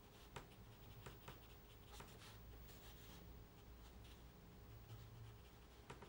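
Faint, soft strokes of a small paintbrush brushing wet pigment across textured watercolour paper, with a few light ticks.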